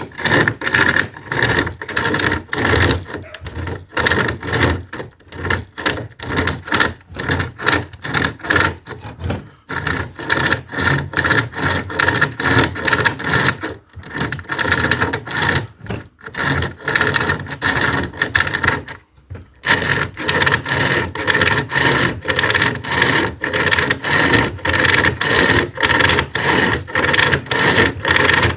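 SOG pocket chainsaw, a hand-pulled length of chain with cutting teeth, sawing through wood in quick back-and-forth strokes, a steady rasping rhythm broken by a few short pauses.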